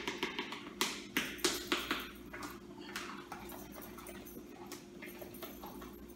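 Kitchen utensils clattering: a quick run of sharp knocks and clinks in the first three seconds, then a few lighter ticks, over a steady low hum.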